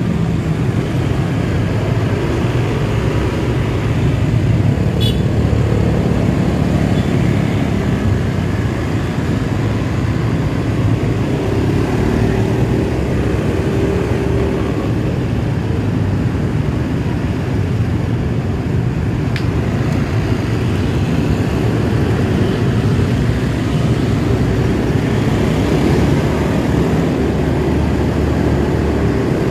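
Steady road and traffic noise heard from a motorcycle riding slowly in congested traffic: the bike's own engine running, mixed with the surrounding cars and motorbikes.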